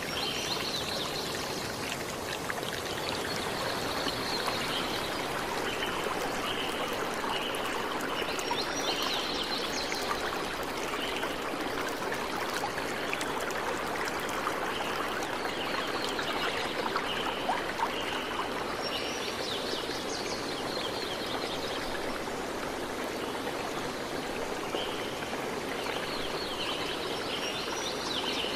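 Steady rain falling, a dense even hiss of water. A repeated high chirping call runs over it, about one and a half chirps a second, dropping out in the middle and returning near the end.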